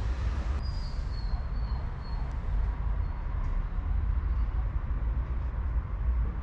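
Low, uneven rumble of wind buffeting the microphone, with a few faint high chirps in the first couple of seconds.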